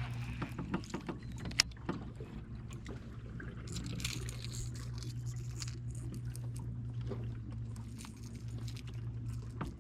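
A low, steady hum on a small fishing boat, with scattered small clicks and light metallic rattling from fishing tackle being handled.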